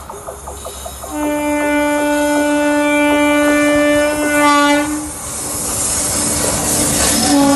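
A WAG9 electric locomotive's horn sounds one long, steady blast of about four seconds, wavering in pitch as it cuts off. The rumble and clatter of the loaded coal train's wheels on the rails then swells as it comes closer, with a short second horn note near the end.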